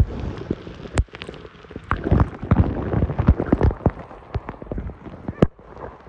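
Water splashing and sloshing around a phone held under the water's surface, with irregular knocks and clicks, busiest about two to four seconds in.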